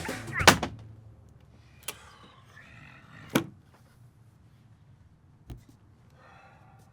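A loud sharp click, then scattered lighter clicks and a low thud, with faint muffled voices in between.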